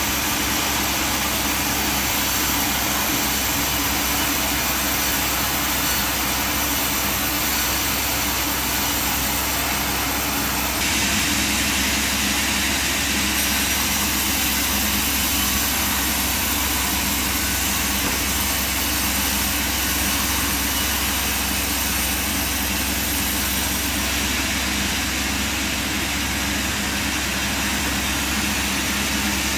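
A machine running steadily: a motor's low hum under a constant hiss. The hiss gets brighter about eleven seconds in and then holds.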